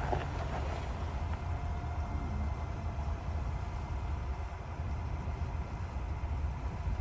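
2021 Ford Bronco crawling slowly along a dirt trail: a steady low engine rumble at low revs, with the tires rolling over loose dirt.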